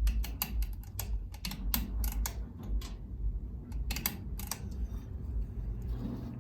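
Harbor Breeze Lakeside II ceiling fan being switched up to medium speed: a quick, irregular run of clicks and ticks, thickest in the first couple of seconds and again about four seconds in, over a low steady hum.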